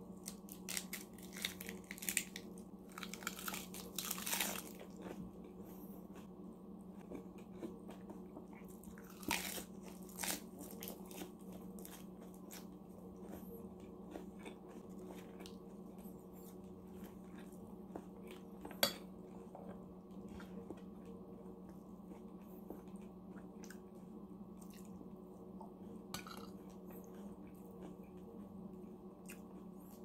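Close-up eating sounds of iceberg lettuce wraps: crisp lettuce crunching and chewing, coming in clusters during the first few seconds and again about ten seconds in. Between them are quieter chewing, a single sharp click just past the middle, and a low steady hum underneath.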